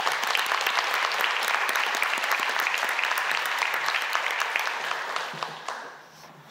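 Audience applauding, a dense patter of many hands clapping that dies away about five to six seconds in.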